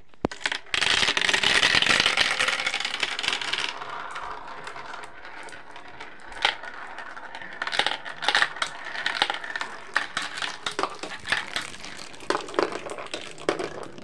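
Marbles rolling and clattering through a plastic tube marble run. A dense rattling rush for about three seconds near the start, then a string of sharp clicks and clacks as marbles drop and knock against the track.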